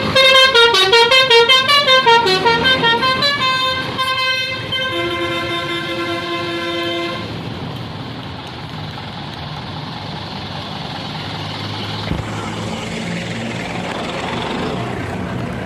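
Basuri telolet bus horn, a multi-tone musical horn, playing a quick stepping tune for about four seconds, then holding a chord until about seven seconds in. After that comes steady vehicle rumble.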